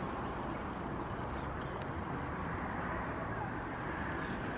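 Fuji Dream Airlines Embraer regional jet on landing approach, its engines heard from the ground as a steady, even rumble.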